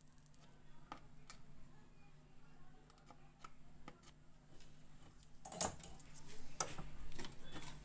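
Scattered light clicks and taps of small tools and parts being handled at a TV repair bench, over a faint steady hum. The clicks grow denser and louder from about five and a half seconds in.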